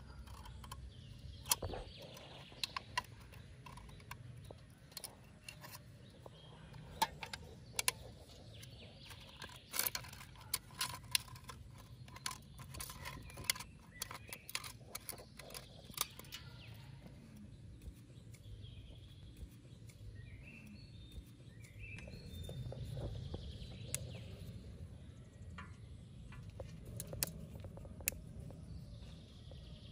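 Scattered sharp clicks and taps, with faint bird chirps in the background and a low hum that swells a little past the middle.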